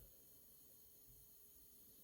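Faint, steady hum of an Acer C250i DLP projector's cooling fan running in Standard display mode.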